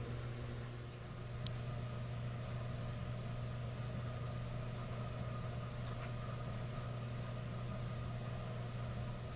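A steady low machine hum, with a faint click about one and a half seconds in.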